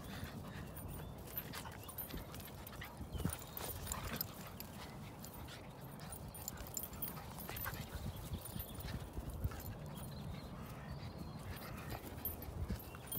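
Two dogs, a Staffordshire bull terrier–Rhodesian Ridgeback cross and a cockapoo puppy, play-fighting on grass: scuffling with many scattered soft thuds and knocks of paws and bodies.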